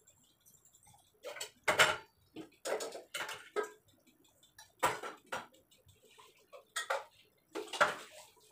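Steel kitchen vessels and utensils being handled: an irregular series of short clinks and knocks, with the loudest near two seconds in and near the end.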